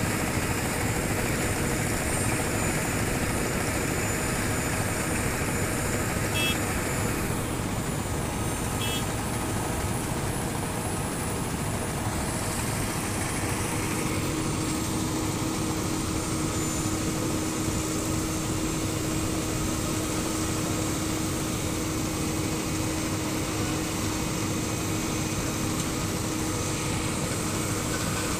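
Heavy diesel road-building machinery running steadily: dump trucks and a Vögele Super 2100 asphalt paver laying asphalt. About halfway through, a steady hum comes in over the engine noise.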